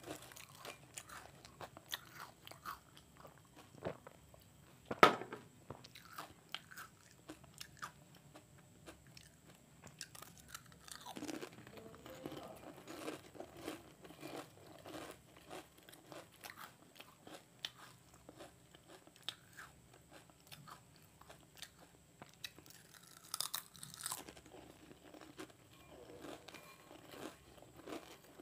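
Close-miked crunching and chewing of potato chips and Kurkure snacks eaten by hand, bite after bite. One much louder sharp snap comes about five seconds in.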